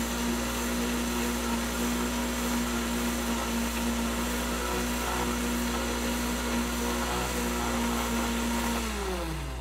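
Countertop blender motor running at a steady speed, puréeing a watery chili-and-garlic marinade until smooth, then winding down with a falling pitch in the last second.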